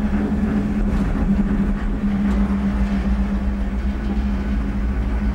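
Cable-car gondola running along its haul cable, heard from inside the cabin: a steady low rumble with a constant hum.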